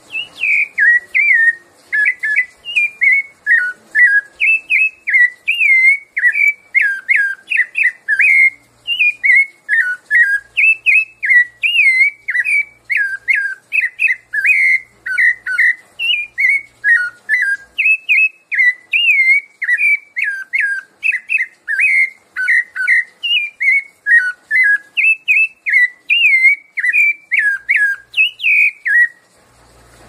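Rufous-bellied thrush (sabiá-laranjeira) singing its 'piedade Senhor' song: a rapid, nearly unbroken run of short fluty whistled notes, several a second, stopping near the end.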